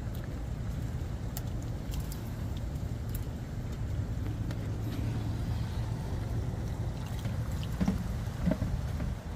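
A steady low rumble, with a few faint light clicks in the first few seconds.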